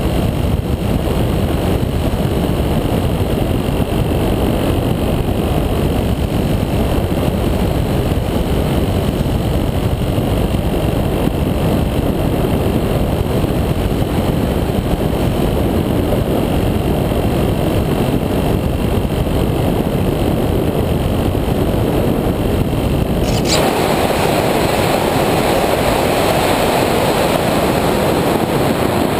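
Steady wind rush and buffeting on the microphone of a GoPro carried by an Easystar II RC plane in flight. With about six seconds to go the sound changes suddenly: the low rumble drops away and a brighter hiss takes over.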